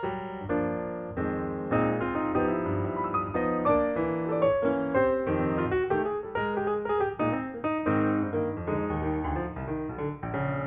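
Background piano music: a continuous melody with chords.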